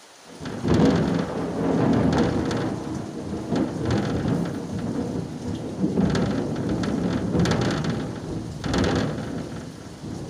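Thunder: a clap breaks suddenly about half a second in and rolls on as a long rumble, swelling several more times before fading near the end.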